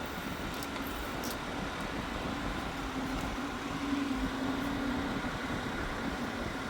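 Steady mechanical background hum with a low droning tone that grows a little louder around the middle, the noise coming in through an open trailer door.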